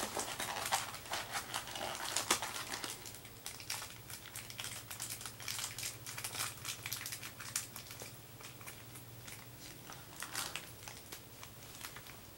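Packaging rustling and crinkling in short, irregular clicks as the contents are pulled out of a toy box. It is busiest in the first few seconds and again near the end.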